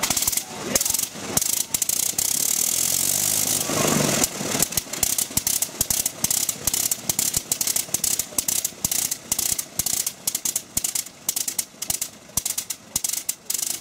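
Gnome Omega seven-cylinder rotary aircraft engine running on a test stand, turning its wooden propeller. It fires in loud, uneven pops, runs steadily for about two seconds a couple of seconds in, then breaks back into irregular bangs several times a second.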